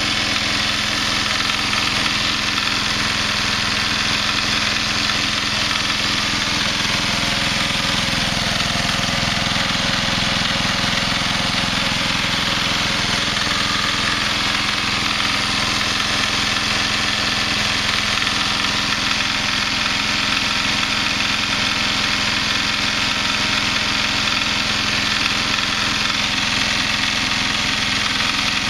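Simplicity 4211 garden tractor engine running steadily with no muffler, with a harsh open-exhaust rattle that the owner takes for an engine knock.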